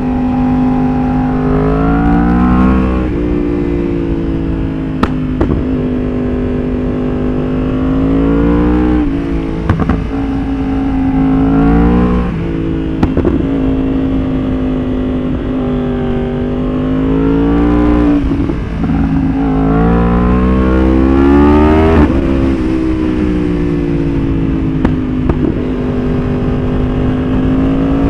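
Yamaha R1 inline-four sport-bike engine under hard riding, revving up and falling back again and again as it pulls through the gears and slows. A few sharp pops and crackles come off the exhaust as it backs off, from its pop-and-bang ECU tune.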